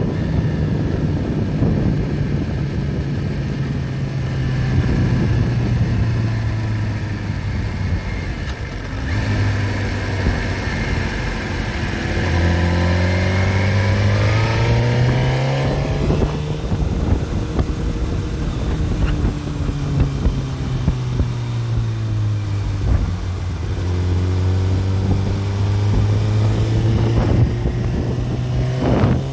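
An engine running, its speed rising and falling several times: climbing around the middle, dropping, then climbing again near the end.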